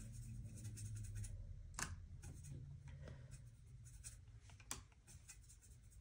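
Watercolour brush swirling and scrubbing wet paint in a metal palette well to mix more colour: a faint scratchy rubbing with a couple of light clicks, the clearest about two seconds in and near the end.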